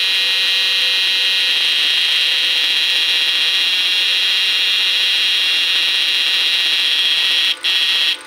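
Homemade transistor inverter for electrofishing, built with two transformers, running under a halogen-lamp load and giving off a loud, steady, high-pitched electrical whine. The whine cuts out briefly twice near the end.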